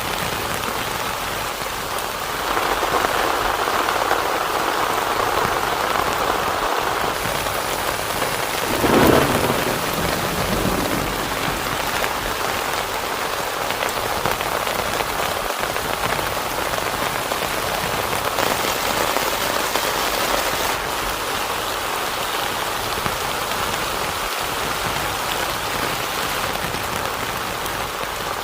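Heavy rain falling steadily on a tent, growing heavier a couple of seconds in. A short burst of thunder about nine seconds in is the loudest moment.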